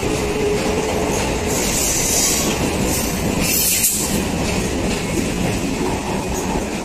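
Chennai suburban electric multiple unit accelerating past at speed: loud wheel-on-rail track noise from the passing coaches, with clickety-clack over the rail joints.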